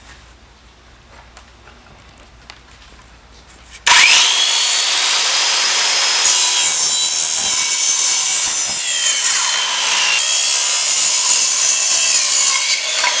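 Saw cutting through a Wilson BLX Tour pickleball paddle, with its basalt-fibre faces and honeycomb core. A few faint handling clicks come first; about four seconds in the saw starts suddenly and runs loud and steady, with a whine that shifts in pitch as it cuts.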